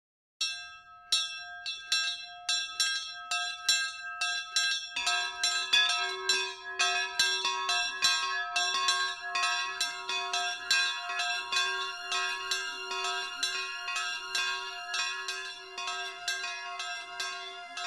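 Bells ringing in a quick, steady peal of about three strokes a second; a second, lower-pitched bell joins about five seconds in.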